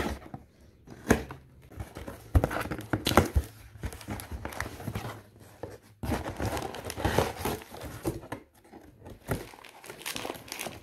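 Cardboard box being opened: a knife slits the packing tape, the flaps are torn and pulled apart, then paper and plastic packing crinkles and rustles as a hand digs inside. The sounds come as irregular scrapes, rips and light taps.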